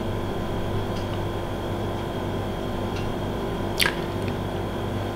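Room tone: a steady low hum with a few faint constant tones, broken by one short click a little under four seconds in.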